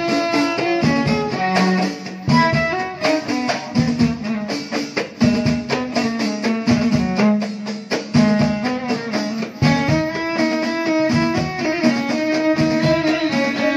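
Moroccan folk band music: a violin held upright on the knee plays the melody over hand-held frame drums beating a steady rhythm, with a plucked-string or keyboard line alongside.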